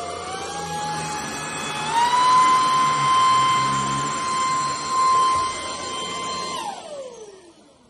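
Anyson cordless stick vacuum cleaner's motor running with a steady high whine. It steps up in pitch twice, the bigger step about two seconds in, as the power setting is raised. About seven seconds in the motor is switched off and the whine glides down and dies away.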